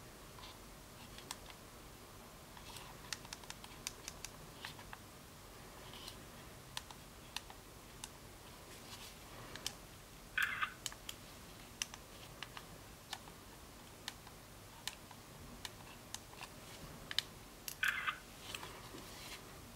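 Small plastic clicks and taps of a Kodak Pixpro FZ43 compact digital camera being handled, its buttons pressed and its body turned in the hands. Two short, louder sounds stand out, about ten and eighteen seconds in, as fingers work at the camera's bottom edge.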